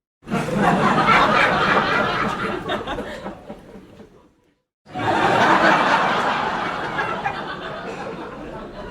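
Comedy club audience laughing in two separate bursts. The first starts suddenly and fades away over about four seconds. After a brief silence, a second burst starts abruptly and slowly dies down.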